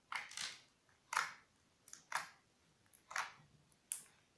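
Blue glittery glue-and-borax slime squelching and popping as it is squeezed and kneaded by hand. There are about seven separate squishes, roughly one or two a second, each sudden and quickly fading.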